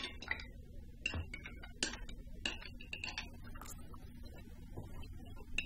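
Light, irregular clicks and clinks of a metal fork on a plate during eating, some with a short ring, over a faint low hum.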